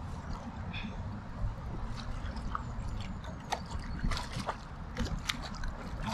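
River water sloshing and trickling over a low steady rumble, with short, sharp splashes and clicks coming irregularly, as a hooked brown trout thrashes at the surface.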